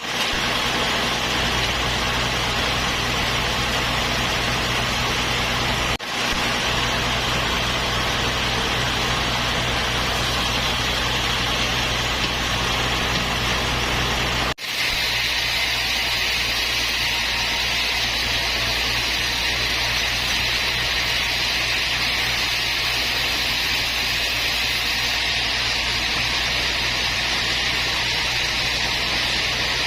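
Sawmill machinery running steadily: a low engine-like hum under a continuous hiss, broken by two brief dropouts, once about six seconds in and again about halfway through.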